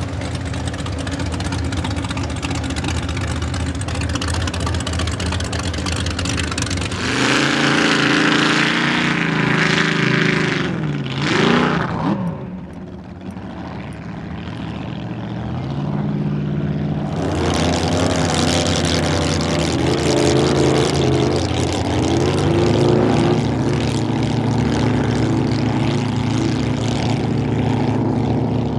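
Inboard engines of v-drive boats running and revving, with shifting pitch; the sound swells about seven seconds in, drops away briefly around twelve seconds, then builds again.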